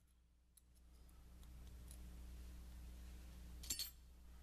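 Faint small metallic clicks of a thin wire tool and coil spring against a steel revolver frame as the friction-pin spring is pushed into its hole, with a sharper double click near the end. A low steady hum underneath comes up about a second in.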